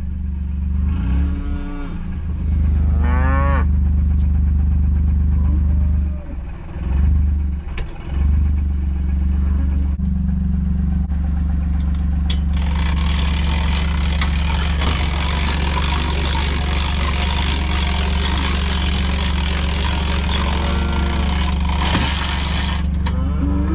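Beef cattle mooing, with a few rising calls, over the steady low hum of an idling John Deere utility vehicle. About thirteen seconds in, a loud, even hiss with a thin high whine starts suddenly, then cuts off about nine seconds later.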